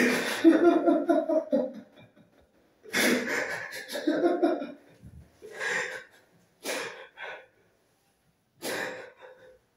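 A man laughing into his hand: breathy, wheezing laughter in five bouts. The first two bouts are the longest and loudest, and three shorter ones follow.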